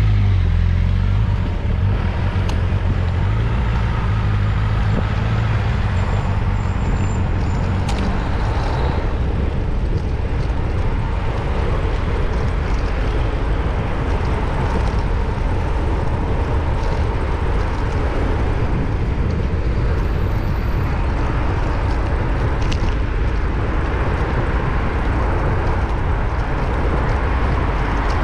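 Road traffic on a city street heard from a moving bicycle: a steady rumble of wind and road vibration on the bike-mounted camera's microphone, with passing vehicles and a single sharp click about eight seconds in.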